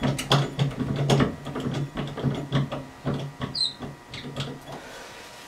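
Clicks and rattles of metal and plastic from an old toilet ball-cock fill valve and its float rod being handled inside a porcelain tank while the water supply is being shut off. A low hum comes and goes under the rattling.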